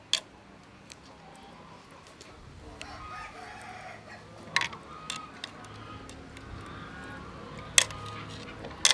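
Rooster crowing in the background, with hens clucking, over the soft sloshing of jujube fruit being rubbed clean by hand in a metal basin of water. A few sharp clinks of fruit against the basin, the loudest near the end.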